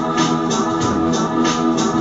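Music with sustained organ-like chords over a steady beat of about four hits a second.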